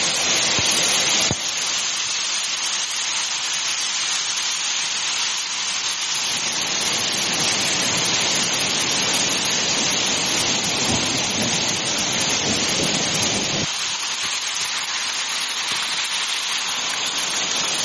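Hailstorm: a steady, dense hiss of hail and rain pelting roofs, a car and the ground. The sound shifts abruptly about a second in and again near the end.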